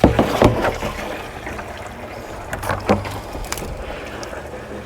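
Water running from a hose and splashing as the hose is rinsed off, with a steady low rumble and a few short knocks from handling the hose and tank.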